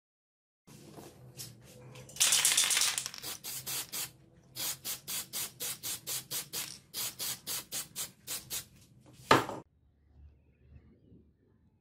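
A wooden hammer handle rubbed by hand in quick back-and-forth strokes, about four a second, after a denser stretch of scrubbing. One louder, harsher stroke comes near the end.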